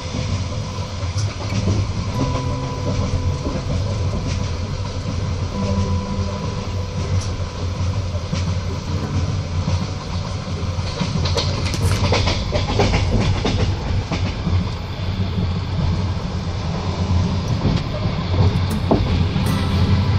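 Passenger train rolling along, heard from inside the carriage: a steady low rumble of wheels on rails, with a run of sharp clicks and rattles about halfway through.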